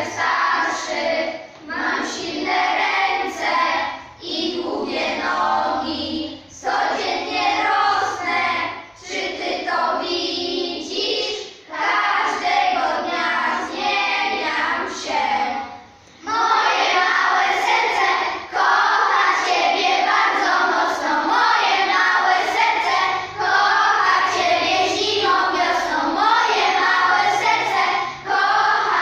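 A class of young schoolchildren singing together in unison in Polish. The singing comes in short phrases with brief breaks at first, then grows louder and more continuous a little past halfway.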